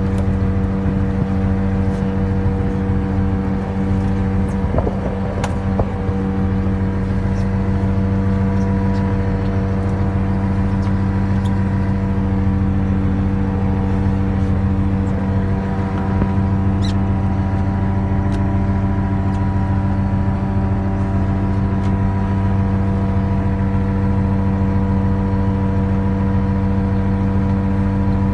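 Fishing boat's engine running steadily with a deep, even drone, with faint scattered clicks from the net and floats being hauled and handled.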